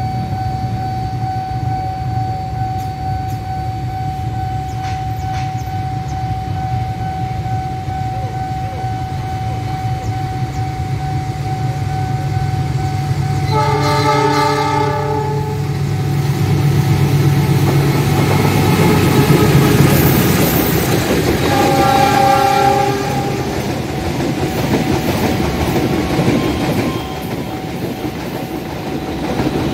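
GE CC206 diesel-electric locomotive hauling a passenger train toward and past the listener: a steady engine rumble that grows louder, a horn blast about 14 seconds in and a second one about 8 seconds later, then the rush and clatter of the coaches' wheels going by.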